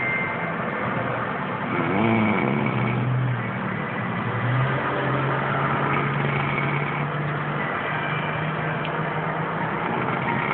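A motor vehicle engine running without pause. Its pitch bends up briefly about two seconds in, then holds a steady low note.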